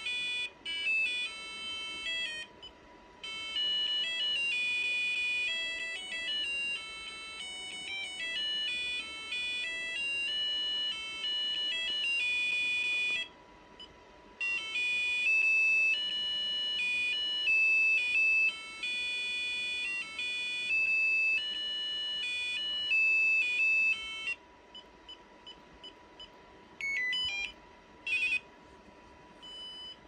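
RadioShack 43-3898 cordless phone handset playing its built-in ringtones from its small speaker: a melody of high electronic beeping notes. It breaks off about 13 seconds in and starts again a second or so later, running until about 24 seconds in. Faint short beeps and two brief tone bursts follow near the end.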